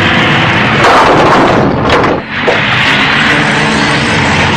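Vehicle crash: a loud rushing, crashing impact about a second in, with a sharp crack near two seconds, then a sudden brief drop before the steady noise resumes.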